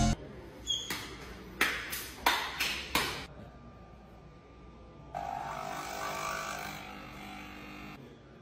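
Capsule coffee machine being handled, with a handful of sharp clicks and knocks and a short high ping. Then about two seconds of the machine buzzing as its pump runs, easing off near the end.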